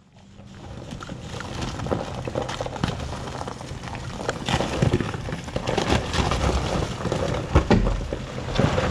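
Jeep Wrangler crawling slowly down a rocky trail: a low, steady engine note under irregular crunches and knocks from the tyres rolling over rocks and leaves. It fades in at the start and grows louder as the Jeep comes closer.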